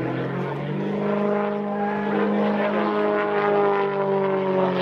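Single-engine aerobatic propeller plane's engine and propeller running overhead, rising in pitch and loudness as power comes on about a second in, then holding steady with a slight drop in pitch towards the end.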